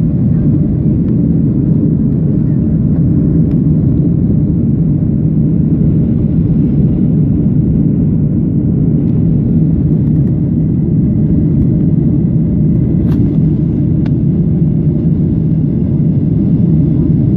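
Steady cabin rumble inside a Boeing 737-600 climbing after takeoff: CFM56-7B engine noise and airflow through the fuselage, heard from a window seat behind the wing.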